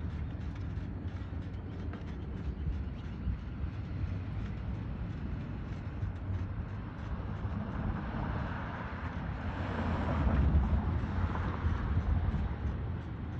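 Steady low outdoor rumble, with a passing vehicle swelling up about eight seconds in and fading out a few seconds later.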